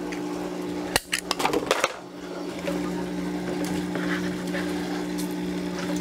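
Hands working drip-kit tubing and plastic fittings: a sharp click about a second in, then a few light rattles and clicks, over a steady low electrical hum of equipment running.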